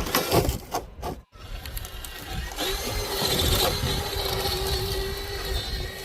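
Electric motor and geared drivetrain of an RC rock crawler whining at a steady speed, after a few sharp knocks in the first second.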